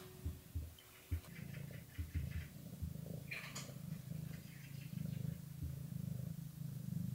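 Domestic cats purring while being petted: a steady, rhythmic low rumble.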